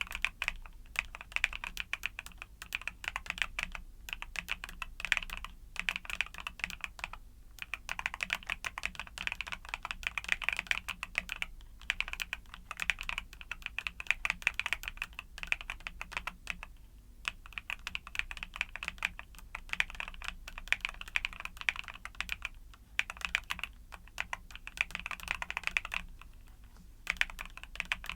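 Rapid, continuous typing on a YUNZII mechanical keyboard with Cocoa Cream switches: a dense patter of keystrokes, with brief pauses every few seconds.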